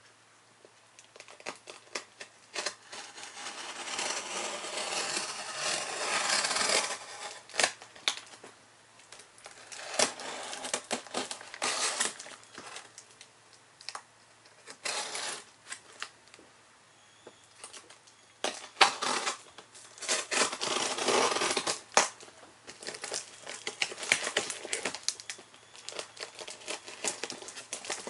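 Hands picking at, scraping and peeling plastic packing tape and plastic wrap on a cardboard shipping box, with a cutter working the tape: stretches of crinkling and tearing a few seconds long, broken by sharp clicks and taps.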